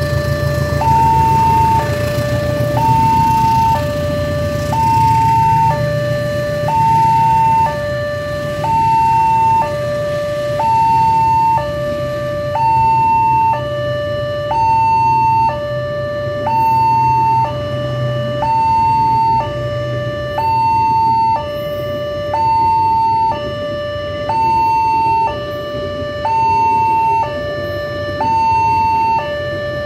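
Railway level-crossing warning siren sounding a steady two-tone hi-lo alarm, switching pitch about once a second. Under it, a passing passenger train hauled by a CC201 diesel-electric locomotive rumbles low, strongest in the first two-thirds and fading after about 18 seconds.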